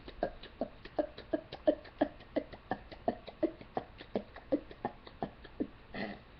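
A rapid, even string of short, forced hiccups from a person, about three a second. They die away shortly before the end.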